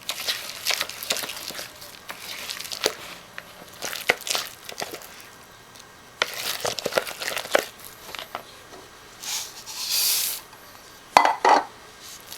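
Spoon stirring bird seed into a sticky flour and corn-syrup dough in a bowl, with irregular scraping, rustling and clicking of the seed. Two louder sharp sounds come near the end.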